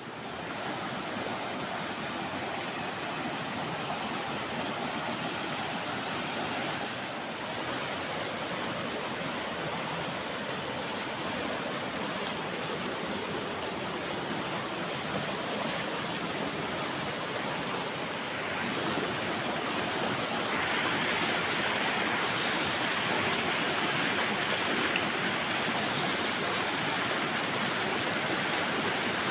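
White-water rapids of a rocky mountain river rushing steadily over boulders, a little louder from about two-thirds of the way in.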